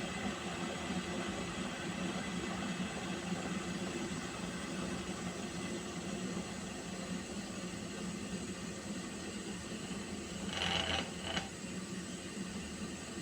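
Water heating toward the boil: a steady hiss over a low hum. Near the end comes a brief, sharper, higher sound in two short parts.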